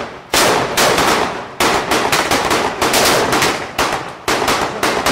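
Irregular small-arms gunfire from blank-firing reenactment rifles and machine guns, about two shots a second, each shot sharp with an echoing tail.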